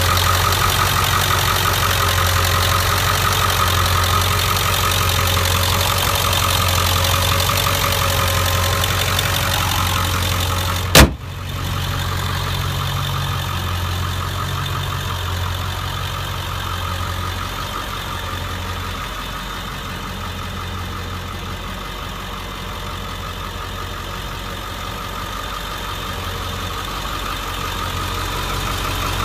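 2002 Ford F-350's 7.3 L Power Stroke turbo-diesel V8 idling steadily. About eleven seconds in the hood shuts with one loud bang, and the engine sounds more muffled after it.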